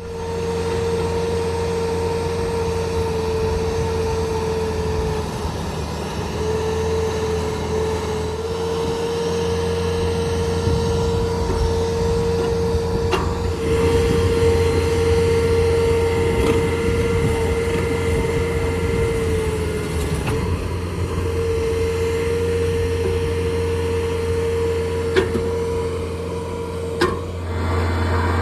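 Skid steer engine running steadily under load, driving a hydraulic auger attachment that drills holes in the ground. A steady whine sits over the engine and drops out briefly twice. There are a couple of sharp knocks near the end.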